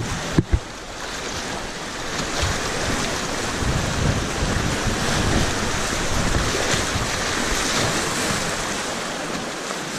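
Rushing whitewater of a river rapid, close up from a kayak, with water splashing around the boat and wind buffeting the microphone in low rumbles from about the middle on. Two sharp knocks come about half a second in.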